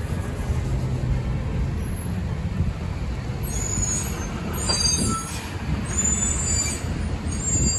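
Steady low rumble of slow, crawling street traffic, with short high-pitched squeals starting about midway through.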